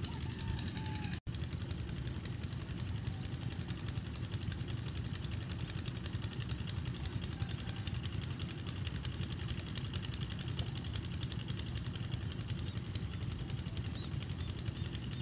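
A small engine running steadily, with a fast, even rhythm.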